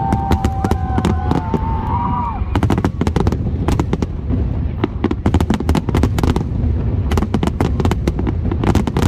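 A fireworks display: rapid, dense cracks and bangs over a continuous low rumble of bursts. A few wavering tones sound in the first two seconds or so.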